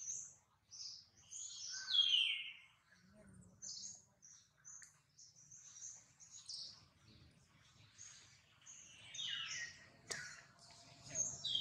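Small birds chirping, a quick run of short high notes, with two louder calls that slide downward in pitch, about two seconds in and again about nine seconds in.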